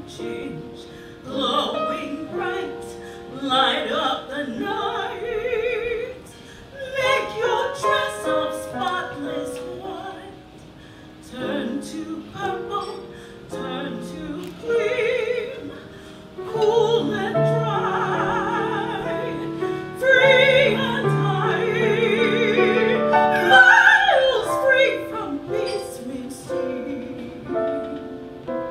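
A solo female voice singing a slow musical-theatre ballad over piano accompaniment, with a wide vibrato on held notes. The singing swells to its loudest about two-thirds of the way through, then quiets.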